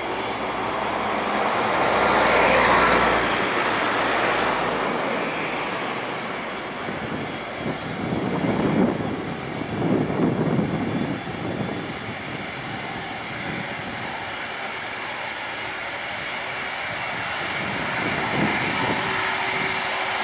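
Boeing 767-300ER's twin jet engines running at taxi power: a steady rush with a thin high whine that grows louder near the end as the jet turns nose-on. A louder rushing swell comes about two to four seconds in.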